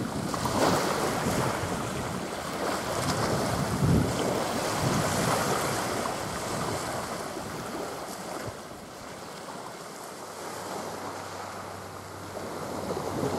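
Wind buffeting the microphone over small waves washing onto the beach. The gusts ease off a little past the middle and pick up again near the end.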